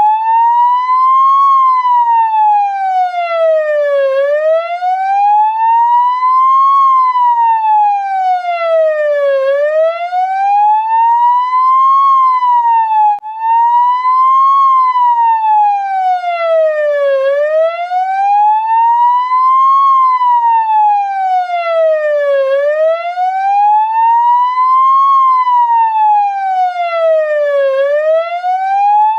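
Ambulance siren in a slow wail, its pitch rising and falling smoothly over about five seconds per cycle, repeating steadily, with one brief break in the sweep about thirteen seconds in.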